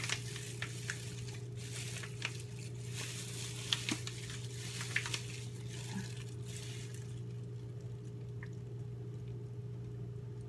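Crackly plastic crinkling with scattered clicks and squishes as thick lip gloss base is scooped out of clear plastic packaging with gloved hands. The handling noise stops about seven seconds in, leaving a steady low electrical hum.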